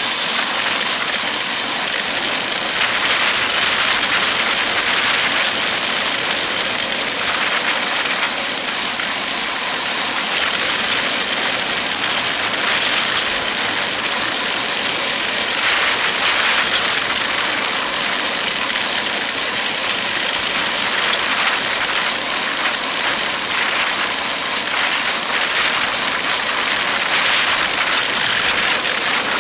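Steady rushing wind on a bicycle-mounted camera's microphone, mixed with road and tyre noise, as a road bike rides at speed on a highway.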